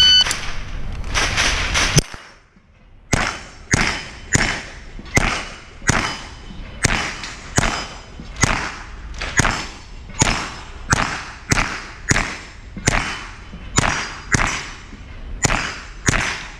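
Range shot-timer beep, then a .22 rimfire mini rifle firing a long, fast string of about two dozen shots, roughly two a second.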